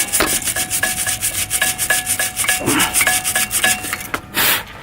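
Small wire brush scrubbing back and forth on a Brembo brake caliper's pad abutment surface in fast, even strokes, clearing a rough corner so the brake pads can slide freely. It ends with one louder scrape about four and a half seconds in.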